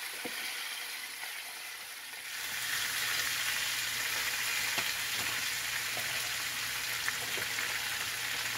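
Freshly washed turnip slices sizzling in hot oil in a frying pan: a steady hiss that grows louder about two seconds in, with a few small pops.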